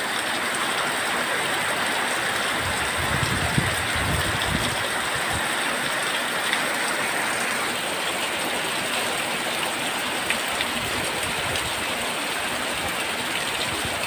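Heavy rain pouring down steadily, a dense even hiss, with strong wind gusting. A low wind rumble comes about three to five seconds in.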